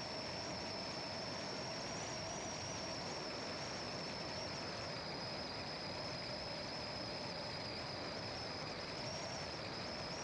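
A car driving steadily along a country road: an even hiss of tyre and wind noise, with a thin high-pitched whine that wavers slightly over it.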